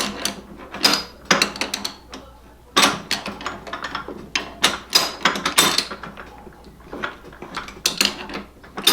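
Quaife sequential gearbox being shifted through its gears by hand, giving irregular metallic clicks and clunks as the shift drum turns and the freshly adjusted detent pops into each gear.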